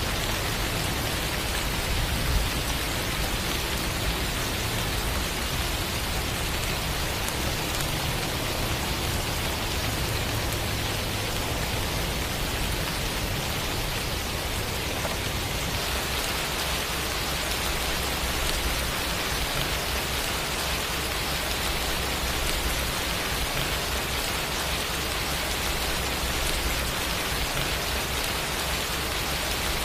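Steady rain falling, an even hiss of many drops. About halfway through, the sound shifts slightly: the hiss turns a little brighter and the low rumble underneath changes.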